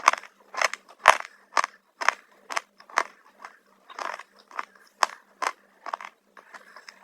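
Close-up crunching of crunchy black chips being bitten and chewed, sharp crackly crunches coming about twice a second.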